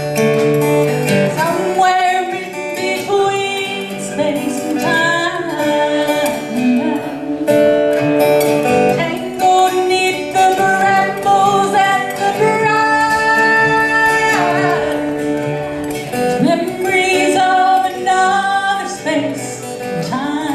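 Music: acoustic guitar playing under a sustained melody line that glides between held notes.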